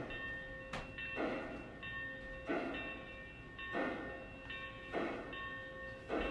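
Lionel B6sb 0-6-0 steam switcher model (Long Island) chuffing slowly from its sound system, about one chuff every 1.3 seconds as it creeps along pulling hopper cars, over a steady whine. A sharp click sounds less than a second in, like wheels crossing a rail joint or switch.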